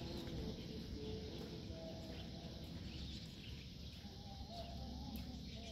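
Faint bird chirps and calls over a low, steady outdoor rumble.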